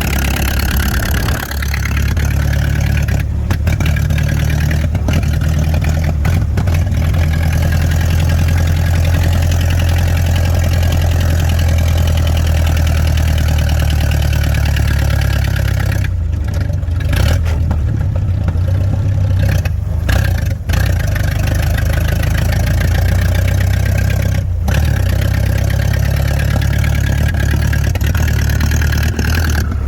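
Vintage Plymouth's four-cylinder flathead engine running steadily with a strong low hum, briefly dipping a few times.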